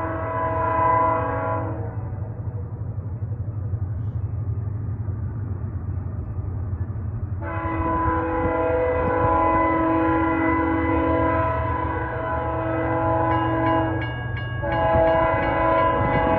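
Nathan K5HL five-chime air horn on BNSF ES44DC locomotive 7528 sounding in long blasts: one ends about two seconds in, a long blast starts about seven seconds in, and after a short break near the end another begins. The horn is the one the filmer calls horrible, a badly sounding K5HL, with a steady low diesel rumble of the approaching locomotive underneath.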